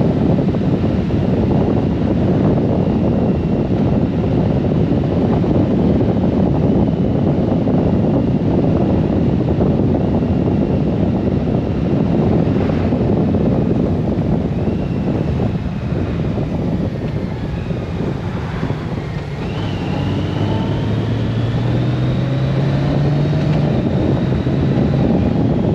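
Riding on a Honda Gold Wing motorcycle: heavy wind rushing over the microphone with the engine and tyres running underneath. About three-quarters of the way in the wind eases for a moment, then a low engine hum comes up and rises gently in pitch as the bike picks up speed.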